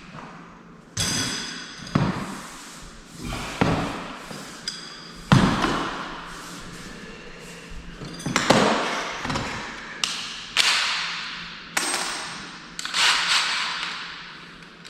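A series of sharp metal knocks and clanks, about ten of them, each ringing out and fading over a second or so, as the hole saw and drill are handled and fitted together.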